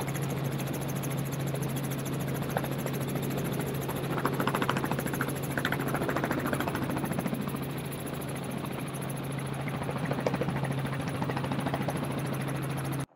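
Helicopter running steadily: a constant low hum with a rapid, even rotor chop.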